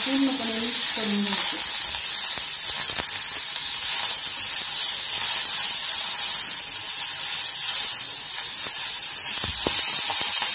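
Chopped onion, tomato, garlic and coriander sizzling in hot oil in a kadhai, stirred and turned with a metal spatula that now and then scrapes against the pan: the onion-tomato masala being roasted.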